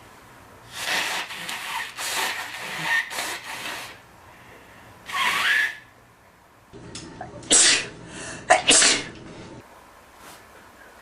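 A man sneezing repeatedly: a run of sneezes in the first few seconds, one more about five seconds in, then two or three sharp sneezes close together near the end.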